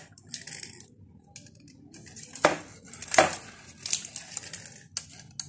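A foil-lined baking tray being handled: the aluminium foil rustles and crinkles in short spells, and the tray knocks sharply twice, a little over half a second apart, near the middle.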